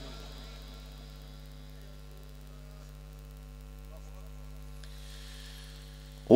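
Steady electrical mains hum through the sound system while the reciter pauses, with the echo of his voice dying away at the start. His amplified Quran chanting comes in loudly at the very end.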